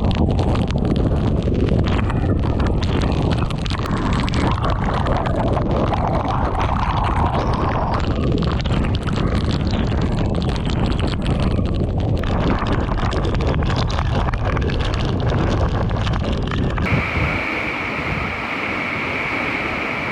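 Gale-force typhoon wind buffeting the microphone in heavy, uneven gusts. About three seconds before the end it cuts off abruptly to calm music with a steady high tone.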